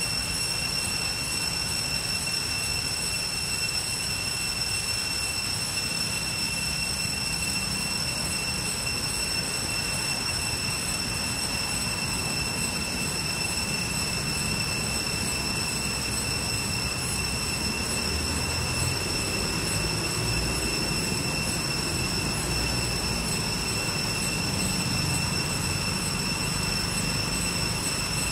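Steady high-pitched insect drone, a cicada chorus, holding one tone with several overtones, over a low rumble that grows a little stronger after about 18 seconds.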